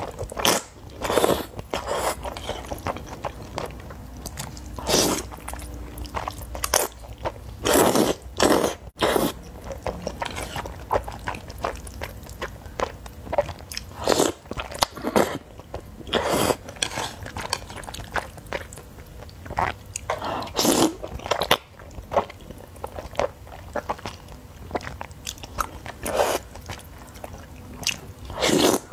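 Close-miked eating of spicy instant noodles with chopsticks: a loud wet slurp every few seconds as a mouthful of noodles is sucked in, with quieter chewing and mouth sounds between.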